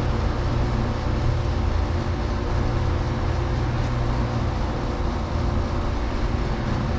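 Steady low mechanical hum of a running motor or machine, unchanging throughout.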